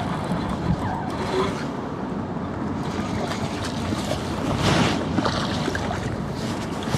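Wind buffeting the microphone over water slapping against a boat, with a short, louder splash about two-thirds of the way in as a hooked smallmouth bass thrashes at the surface beside the boat.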